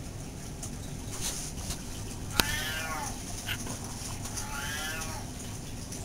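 Domestic cat meowing twice, two drawn-out meows each just under a second long, rising then falling in pitch. A sharp click comes just as the first meow begins.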